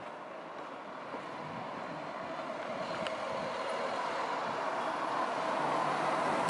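Small van driving up the street toward the microphone, its engine and tyre noise growing steadily louder as it comes close.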